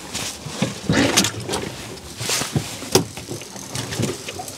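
Irregular knocks, thumps and scuffs on a boat deck as a large common skate is handled and held down for measuring, over a rushing background noise.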